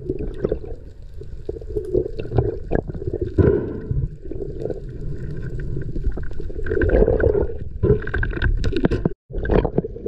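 Muffled underwater sound picked up by a diver's head-mounted GoPro: water rushing and gurgling past the camera with scattered clicks and knocks. The sound drops out for a moment near the end.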